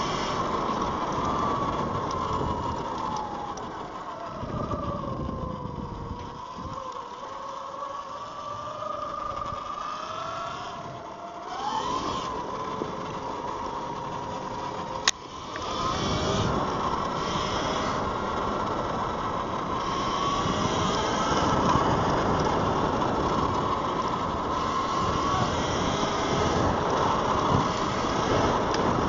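Electric dirt bike's motor whining, its pitch falling as it slows and climbing again as it speeds up, over steady wind and tyre noise. A single sharp click about halfway through.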